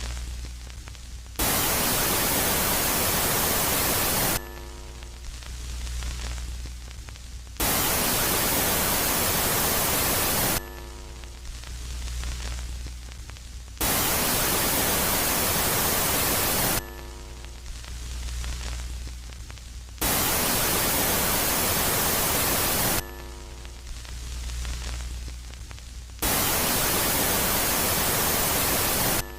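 Synthesized space-ambient static, switching between a loud phase of full hiss and a quiet phase of low hum. Each loud stretch lasts about three seconds and comes back about every six seconds, five times in all.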